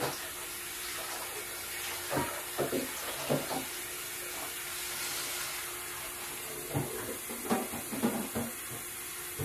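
Water running from a kitchen tap with a steady hiss, over a steady hum, with two short clusters of light knocks and clatters.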